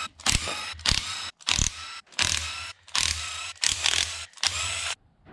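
Socket ratchet clicking in a run of short strokes, about seven of them, as the bolts of a Nissan R200 differential's rear cover are undone; the clicking stops near the end.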